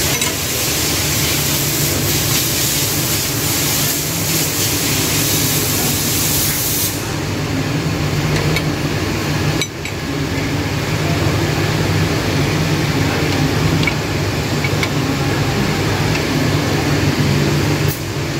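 A machine drones steadily under a loud, even hiss. The brightest top of the hiss drops away about seven seconds in.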